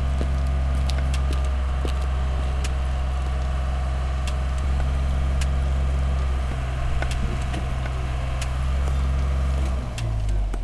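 A steady low motor hum with scattered sharp clicks and ticks.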